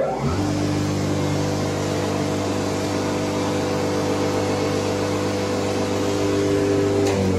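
FSSh-1A(K) woodworking spindle moulder, its 7.5 kW electric motor and SKF-bearing spindle freshly overhauled, switched on: it spins up within the first half second and then runs at a steady even hum. Near the end its pitch starts to drop as it winds down.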